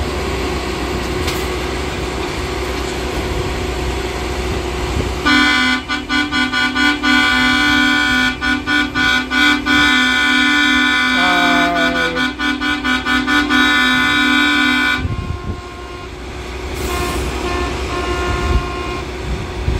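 Locomotive air horn sounding from about five seconds in for some ten seconds, several tones at once, in broken, stuttering blasts, warning of an approaching train. A steady low rumble of idling track machines runs underneath.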